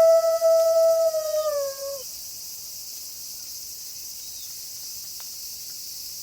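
A single wolf howl, held on one pitch and then sliding down and fading out about two seconds in, over a steady high hiss.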